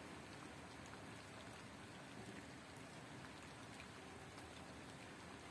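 Faint steady patter of falling wet snow, with scattered tiny ticks as the flakes land.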